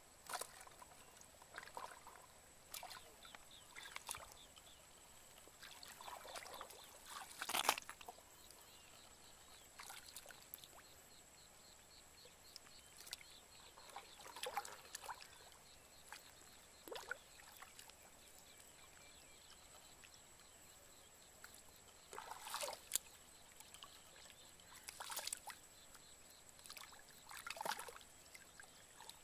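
Shallow muddy water splashing and sloshing in scattered, irregular bursts as hands grope for fish and drop them into a plastic basin. The loudest splash comes about a quarter of the way in, with another strong one about three quarters of the way in.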